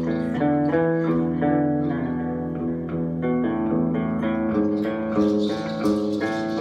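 Live instrumental music led by guitar: a quick melodic run of single plucked notes.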